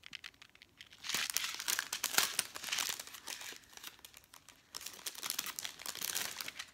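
Clear plastic packaging crinkling and tearing as it is pulled open by hand, in two spells: one starting about a second in, another about five seconds in.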